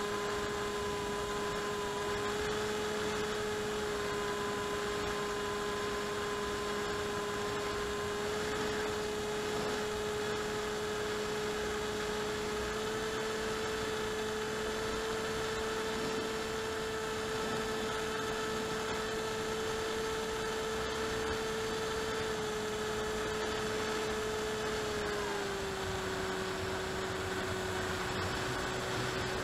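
Electric motor and propeller of an AXN Floater-Jet RC plane running steadily in flight, picked up by the onboard camera over a hiss of airflow. The drone's pitch rises a little about 13 seconds in and drops again near the end.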